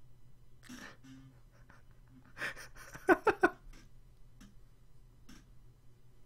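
A man laughing: a breathy burst, then three short, loud "ha" pulses about three seconds in, with softer breaths around them.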